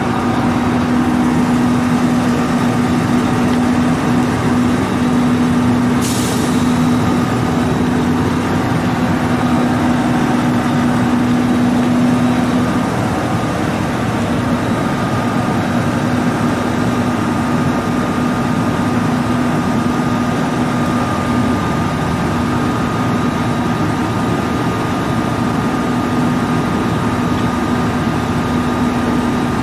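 Diesel railcar engine idling steadily, a little quieter after about thirteen seconds. A short hiss of air is heard about six seconds in.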